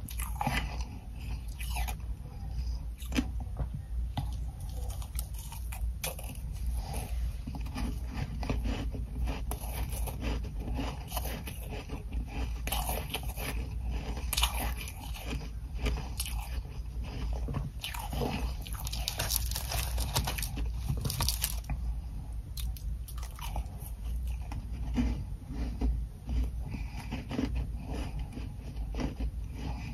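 Close-miked biting and crunching of frost-covered ice chunks, with irregular hard crunches and chewing throughout and a busier run of crunching about two-thirds of the way in.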